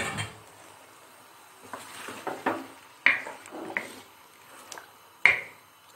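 Wooden spoon stirring and scraping boiled chickpeas and yogurt in a karahi: a string of short wet scrapes and squelches, the sharpest about five seconds in.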